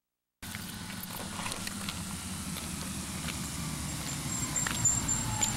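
School bus engine running as the bus drives up the street, a low rumble that cuts in abruptly about half a second in and slowly grows louder. A high thin squeal starts near the end as the bus slows to a stop.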